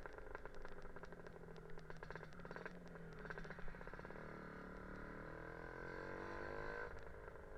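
Lambretta scooter's Casa Performance SSR265 two-stroke engine on the move: rapid crackly popping for the first few seconds, then a smoothly rising note as it accelerates, which cuts off abruptly near the end.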